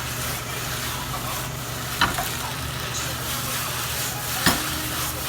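Sliced onions sizzling in a frying pan as they are stirred while caramelizing, with a sharp knock of the utensil against the pan about two seconds in and again near the end.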